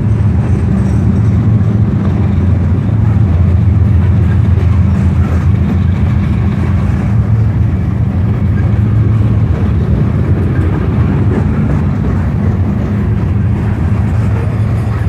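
A train rolling past close by: a loud, steady low rumble of the train's running gear and cars on the rails, with no horn sounding.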